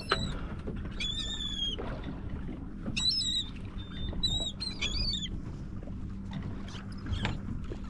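Seabirds calling over open water: several high, short calls in the first few seconds, one drawn out about a second in, over a low steady hum and the wash of water against the boat.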